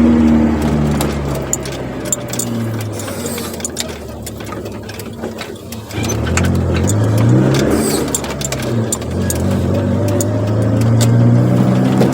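Chevrolet Corsa with a sport exhaust, driven on the road: the engine note falls and eases off over the first few seconds, then picks up again about halfway through and rises under acceleration, dropping briefly at a gear change before climbing again.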